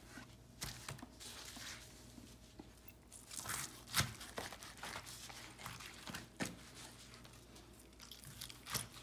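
Knife cutting through smoked pork spareribs on a plastic cutting board: irregular crunches and knocks of the blade, the loudest about four seconds in.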